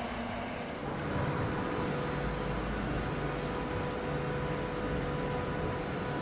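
Diesel train engine running steadily, a drone with a faint steady whine, its low rumble growing about a second in.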